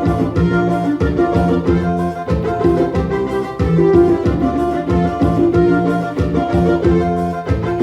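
Forró song played on an electronic keyboard: held melody notes over a steady drum beat.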